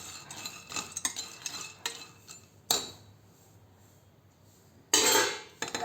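Metal spoon scraping and clinking against a pan of dry-roasted long pepper (pippali). There is a sharp clink nearly three seconds in, and a short loud burst of scraping and rattling near the end.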